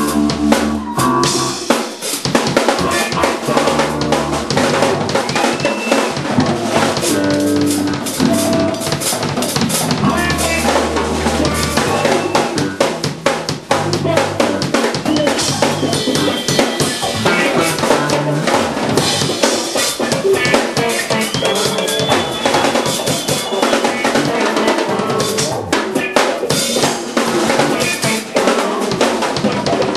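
A drum kit played busily, with kick drum, snare and rimshots, together with electric guitars, one of them a hollow-body archtop, in a live jazz band. Held low notes and bending guitar lines sit over the drumming.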